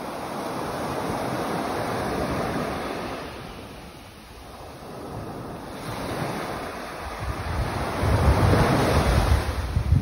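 Small waves breaking and washing up a sand beach, the surf hiss ebbing about four seconds in and swelling again to its loudest near the end. Wind rumbles on the microphone.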